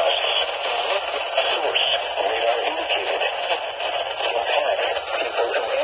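A voice played over a radio receiver: band-limited and muffled, with a steady hiss behind it and no pauses.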